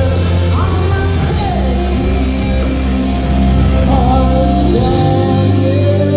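Live rock band playing loud: electric guitars and bass over drums, with a woman singing.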